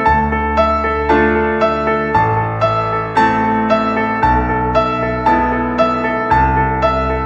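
Instrumental background music: evenly struck keyboard notes about twice a second over low chords that change every two seconds or so.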